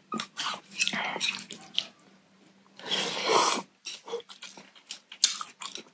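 Slurping and wet mouth sounds of eating naengmyeon, Korean cold noodles in broth: short wet smacks and clicks, with one longer, louder slurp about three seconds in.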